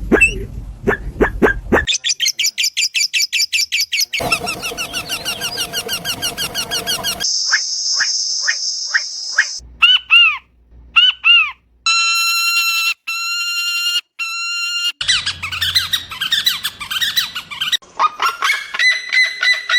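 A run of different unusual bird calls cut one after another, changing abruptly every few seconds: rapid pulsed clicking and chattering, a steady hissing buzz, repeated arching whistled notes, flat ringing tones, and dense chatter ending in falling calls.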